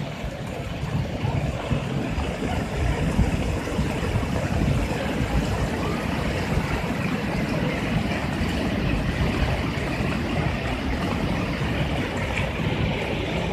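Muddy floodwater rushing over a low concrete weir and churning downstream, a steady, unbroken rush of water.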